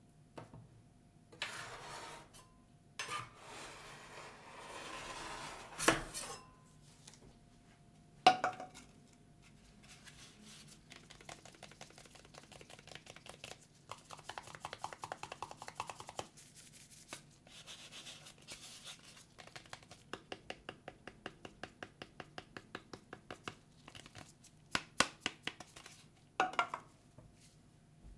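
A metal spatula scraping across the cold steel plate of a rolled ice cream pan, with two sharp clacks. Then gloved fingers tap and scratch a white disposable cup in a long run of quick, light taps, and a few sharper knocks come near the end.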